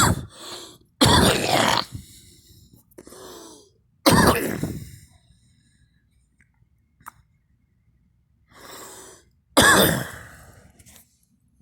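A person coughing in separate loud fits: one about a second in, another about four seconds in, and a last one near the end, with quieter breathy sounds between.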